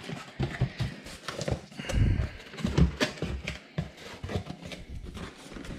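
Cardboard shipping box being opened by hand: flaps pulled back and the cardboard knocked and scraped in irregular thumps, loudest about two and three seconds in.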